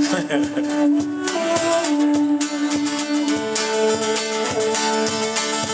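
Guitar playing, strummed and picked, with held notes that change every second or two.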